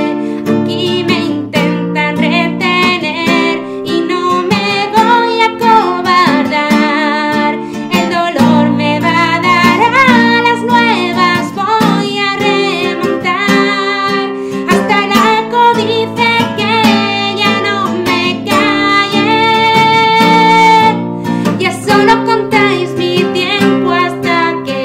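A woman singing in Spanish while strumming chords on a classical guitar, her voice carrying the melody over the strummed accompaniment, with a long held note a little past the middle.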